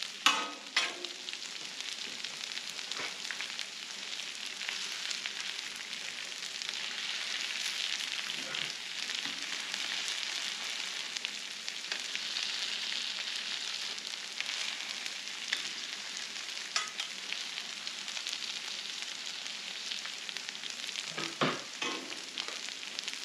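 Shredded hash browns and other food frying on a hot Blackstone flat-top griddle: a steady sizzle, a little stronger in the middle, with a few sharp clicks near the start and near the end.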